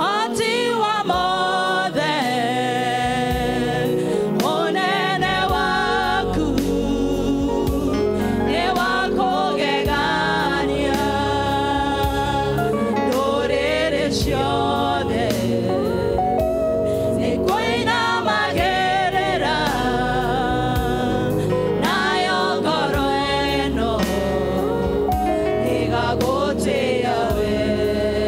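A women's praise-and-worship group singing a Kikuyu gospel song together into microphones, over a steady musical accompaniment with a bass line that comes in about five seconds in.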